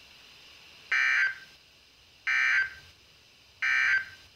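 Emergency Alert System (SAME) end-of-message data signal from NOAA Weather Radio: three short, buzzy digital tone bursts about 1.4 seconds apart. This marks the end of the warning broadcast.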